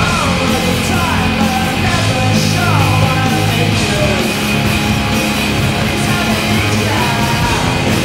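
Loud, driving hard rock music with shouted vocals, played as a hockey goal song.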